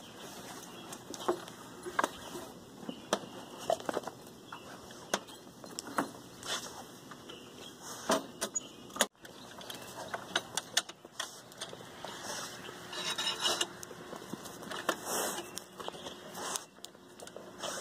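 Irregular clicks, clacks and light metallic rattles of a folding suitcase-style solar panel being handled: the case opened and its metal kickstand legs unfolded and set.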